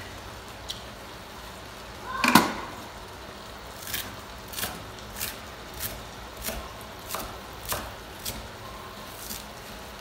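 Thick tomato sauce bubbling in a steel wok: short pops come a little under twice a second from about four seconds in, with one bigger, louder bubble bursting about two seconds in.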